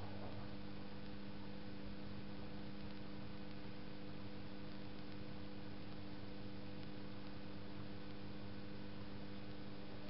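AEG Öko-Lavamat 8650 front-loading washing machine running mid-wash: a steady hum with several held tones over a faint wash of water noise.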